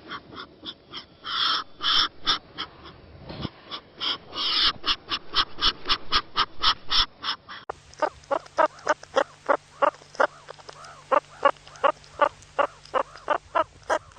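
An animal calling in a rapid series of short, repeated calls, about three a second; the series changes partway through, where a different clip of similar calls begins.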